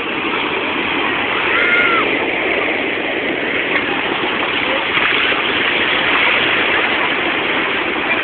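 Sea waves breaking and washing over the shallows: a steady rushing noise.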